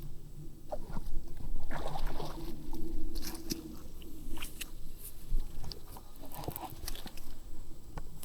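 Irregular clicks, knocks and rattles of fishing gear being handled while a big pickerel is fought and landed, with a faint steady hum underneath.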